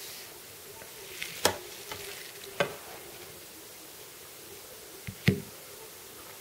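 Steady hiss broken by a few sharp clicks and knocks: one about a second and a half in, another a second later, and a quick double knock near the end, the loudest of them.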